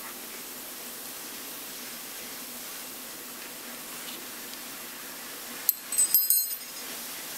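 Faint steady hiss, then a quick cluster of light metallic clinks about six seconds in as the newly cut gear wheel and its small metal fittings are handled off the cutting arbor.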